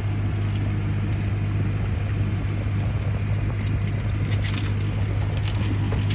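Plastic wrapper of a pack of baseball cards crinkling and crackling as it is torn open by hand, thickest in the last couple of seconds. Under it, the steady low hum of a running car.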